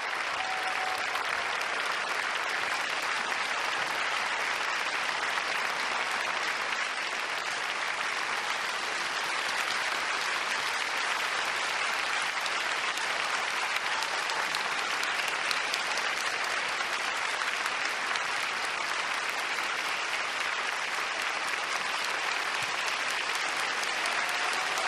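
Sustained applause from a large crowd, an even steady clapping with no pauses.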